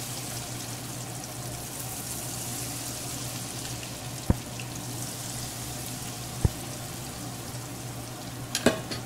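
Hot oil sizzling and crackling in a wok as thin batter is poured over frying banana fritters. Two sharp clicks stand out, about four and six and a half seconds in, over a steady low hum.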